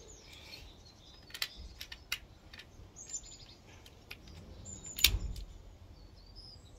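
Small birds chirping at intervals, with scattered sharp clicks of a plastic model locomotive body being handled; the loudest is a knock about five seconds in.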